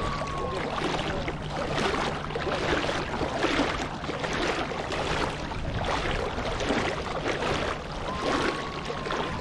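Shallow sea water lapping and sloshing close around the camera at the surface, a steady wash with irregular surges.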